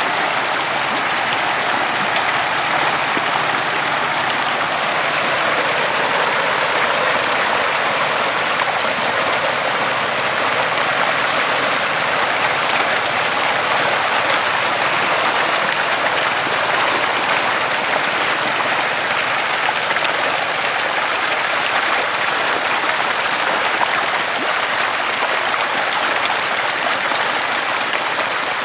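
A dense shoal of young hybrid magur catfish thrashing and splashing at the pond's surface as they feed, a steady, unbroken patter of churning water.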